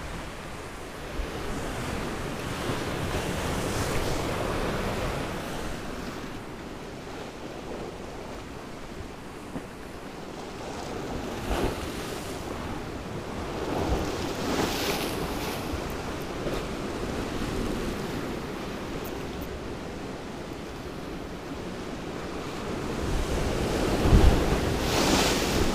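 Sea waves washing onto the shore, swelling and fading every few seconds, with wind buffeting the microphone and a stronger gust near the end.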